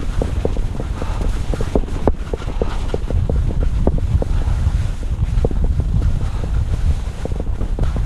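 Wind buffeting the microphone as the skier moves downhill, with skis scraping and clattering over bumpy, uneven spring snow: a steady low rush broken by many quick, irregular ticks.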